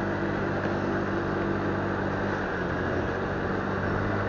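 Motorcycle engine running at low speed, a steady, even hum with road noise.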